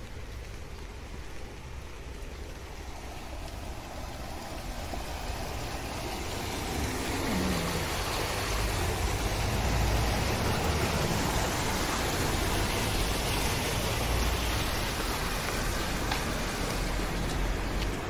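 Rushing water pouring down a drop in a concrete irrigation channel: a steady hiss that grows louder up to about the middle and eases a little after, with a low rumble underneath.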